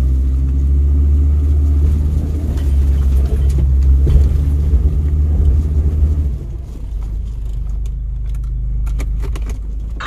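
Off-road vehicle's engine running steadily under load on a rough trail. About six seconds in the drone eases off to a lower rumble, with scattered knocks and rattles.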